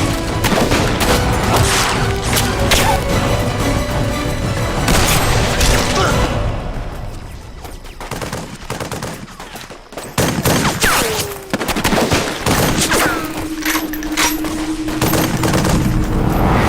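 Volleys of rifle and machine-gun fire from a film battle scene, with a music score underneath. The shooting thins out and quietens for a couple of seconds about halfway, then picks up again.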